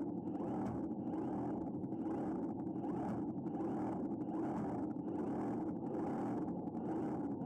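The robotic fish's motor running steadily while its tail fin beats back and forth about twice a second, giving a rhythmic pulse over the motor's hum, heard from an underwater camera.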